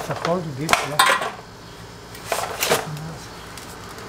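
Sharp metallic clinks, about five in all, of a hand tool knocking against the AC condenser and its metal mounting as it is worked into place.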